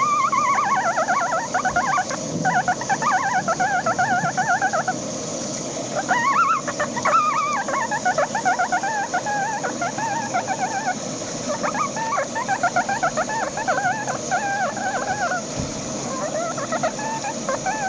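A high, rapidly quivering warbling trill, made in phrases of a few seconds with short breaks between them, most likely a person's voice making deliberately annoying noises. A steady hiss runs underneath.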